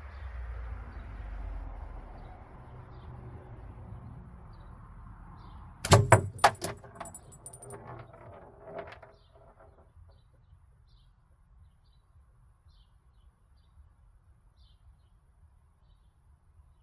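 A 10 mm steel slingshot ball strikes a homemade rattle target about six seconds in: one sharp hit, then a couple of seconds of metallic clattering and jingling that fades out. Faint bird chirps sound throughout.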